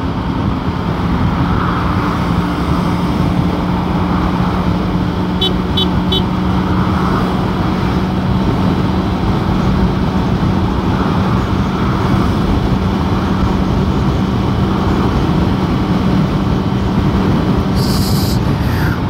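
Suzuki GSX-S750's inline-four engine holding a steady cruising note at highway speed, over heavy wind rush. A short hiss cuts in near the end.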